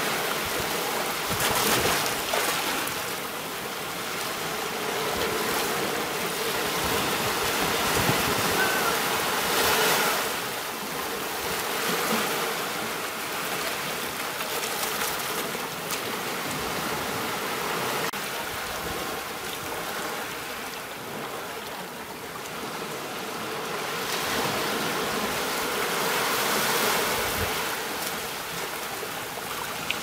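Ocean waves breaking and washing ashore: a steady hiss of surf that swells and fades every several seconds.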